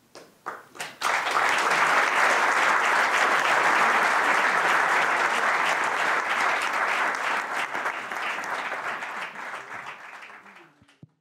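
Audience applauding: a few scattered first claps, then full applause that fades away near the end.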